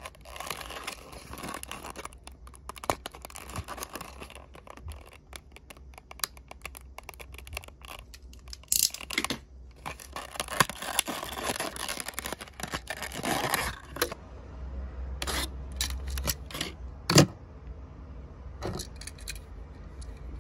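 Stiff clear plastic blister pack being worked open by hand, with crinkling and scraping for most of the stretch. After that come scattered sharp clicks as the die-cast toy car is freed from the plastic, the loudest about three-quarters of the way through.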